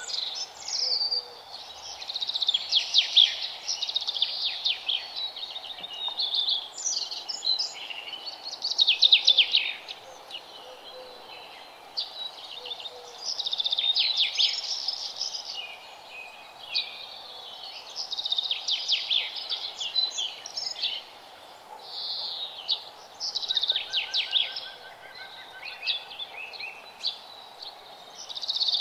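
Songbirds chirping and trilling in repeated bursts a second or two long, over a faint steady hum.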